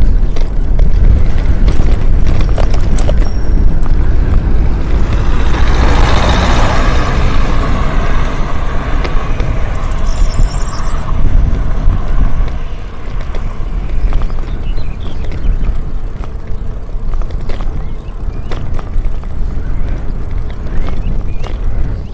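Strong, cold wind buffeting the microphone, a deep rumble throughout, with a louder rushing swell about six seconds in; it eases off after about twelve seconds.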